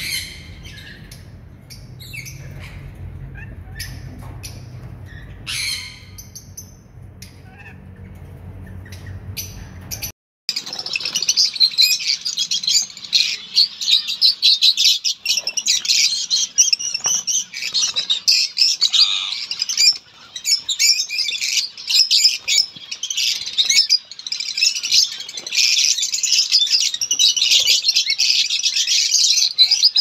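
A flock of lovebirds chattering, with dense, continuous high-pitched chirps and squawks from about a third of the way in. Before that there is a steady low hum with a few scattered single bird calls.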